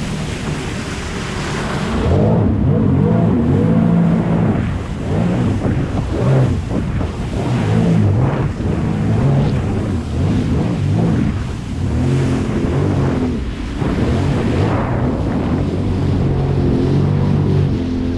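Sea-Doo Spark Trixx jet ski's Rotax three-cylinder engine running under changing throttle as it wheelies and jumps, its pitch rising and falling, with water spray and wind rushing on the microphone. The first two seconds are mostly rushing water and wind before the engine comes up strongly.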